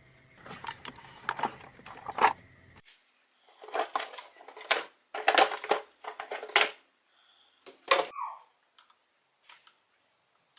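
Hard parts and tools being handled, clattering and scraping in irregular short bursts, with a brief squeak near the end.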